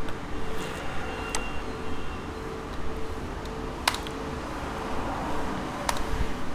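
A handful of sharp single clicks from a computer keyboard being used to type a search, spaced a second or two apart, over a steady low hum of room noise with a faint constant tone.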